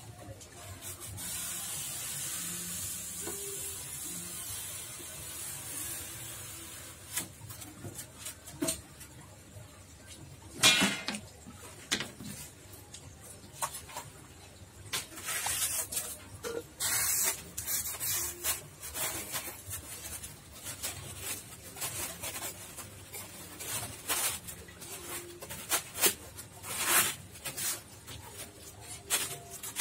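Polystyrene foam sheets scraping and rubbing against each other and the tub walls as they are handled and pressed into place. A steady hiss for the first few seconds gives way to a string of short scraping noises.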